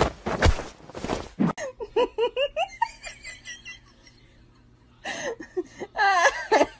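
A person laughing in short rhythmic bursts, then laughing again near the end, after a brief rustling scuffle in the first second and a half.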